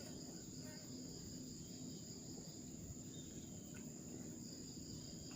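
Insects chirring steadily at two high pitches, over a low background rumble with a few faint ticks.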